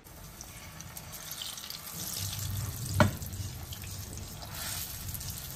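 Mashed-plantain unnakkaya dumplings sizzling as they shallow-fry in oil in a non-stick pan, with a single sharp knock about three seconds in.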